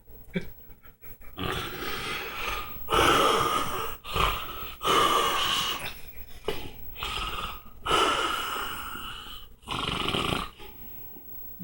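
A man snoring loudly: a run of harsh, noisy snores with short breaks between them, the loudest coming about three, five and eight seconds in.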